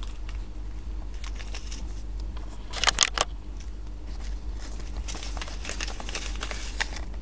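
Paper seed packets crinkling and rustling in the hands during seed sowing, with small taps and clicks, and a short louder crinkle about three seconds in.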